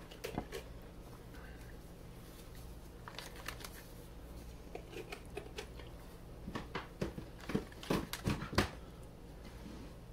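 Small clicks and rustles of raw catfish nuggets being picked off a plate and dropped into a plastic zip-top bag of cornmeal fish-fry coating, busier in the second half, over a faint steady low hum.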